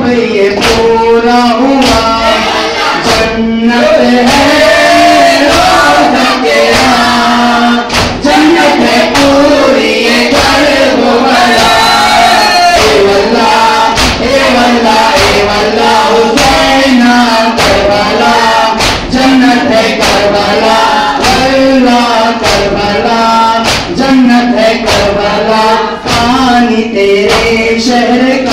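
Men singing a noha, a Shia lament, together in chorus, over a steady beat of sharp strikes from mourners beating their chests in matam.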